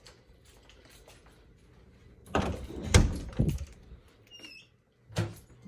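A wooden interior door being opened: a cluster of knocks and rattles from the handle and door, loudest about three seconds in, then a brief high squeak and one more knock near the end.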